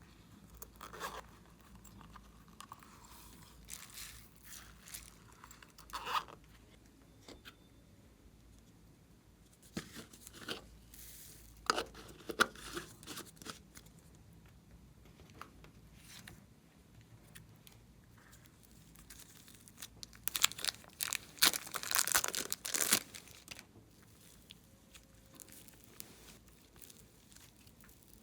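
Glossy slime being worked by hand: sticky crackling and popping in irregular bursts, with a longer run of louder crackling about three quarters of the way through.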